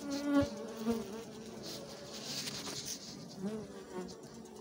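Italian honeybees buzzing around an open brood frame, with single bees flying close past the microphone so that the buzz swells and fades, loudest near the start and again near the end.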